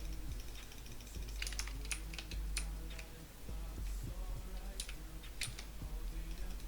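A chair creaking: a string of sharp clicks and creaks, once in the second second of the clip and again about five seconds in.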